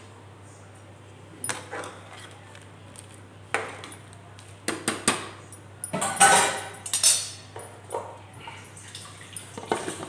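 Scattered metal clinks and knocks from an aluminium pressure cooker being handled as its lid is put on, with the busiest and loudest clatter about six to seven seconds in.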